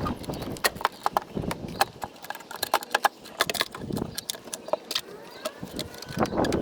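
Irregular clicks, knocks and clatter of the plastic air cleaner housing being handled and seated on a Honda CR-V engine, with a few duller thumps about a second and a half in, around four seconds in and near the end.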